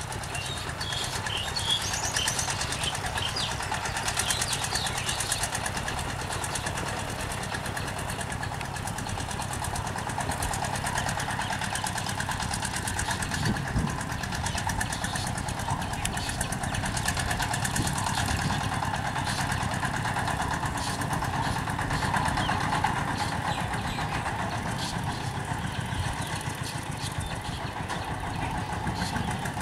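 Chinese diesel engine of a locally built mini truck running steadily under a heavy load of corn sacks, a continuous fast-firing engine note throughout.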